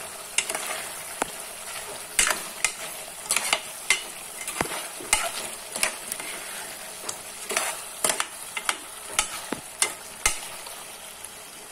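Metal ladle stirring spiced mutton boti in a pressure cooker pot, knocking and scraping against the pot at irregular intervals, about one or two strikes a second, over a steady frying sizzle.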